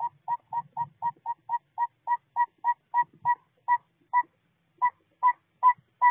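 Northern saw-whet owl giving its tooting advertising song, the male's call: a long series of short, evenly pitched toots. They come about four a second and slow slightly. After a brief break about four and a half seconds in, the toots resume louder.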